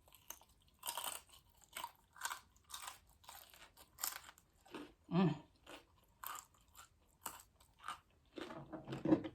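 Close-up chewing of crispy fried food: a string of irregular sharp crunches, with a short low vocal sound about five seconds in and another just before the end.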